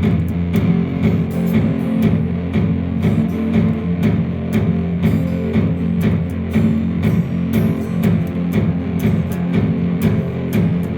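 Rock music led by an overdriven electric guitar, with bass, playing steadily with sharp regular picked attacks.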